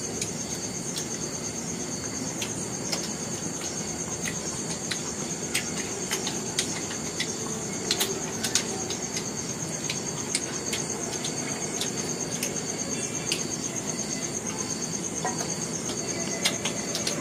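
Crickets chirring in a steady, high, fast-pulsing trill, with scattered small clicks from eating and chewing.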